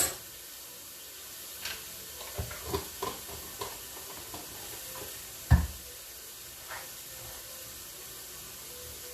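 Onions and garlic sizzling steadily in a saucepan, with scattered clicks and knocks of kitchen utensils and cookware; one sharp knock about five and a half seconds in is the loudest.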